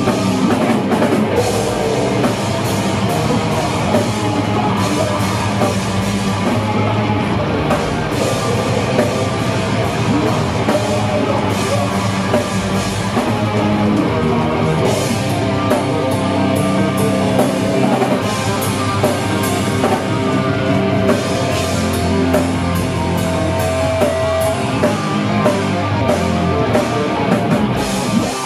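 Live metal band playing two electric guitars over a full drum kit, loud and continuous, with cymbals crashing throughout.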